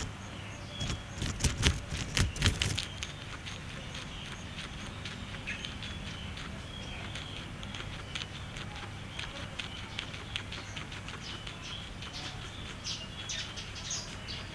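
A guinea pig biting and chewing fresh green grass stalks: loud crunching and rustling for a couple of seconds near the start, then quieter, steady chewing clicks. Birds chirp in the background.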